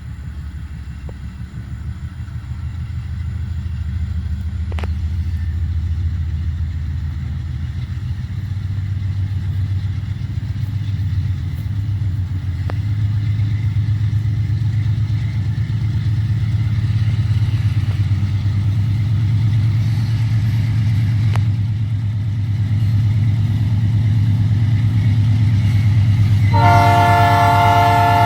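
GE B39-8E diesel-electric locomotives approaching, a low engine rumble growing steadily louder. Near the end the locomotive's air horn sounds, a chord of several tones held past the end.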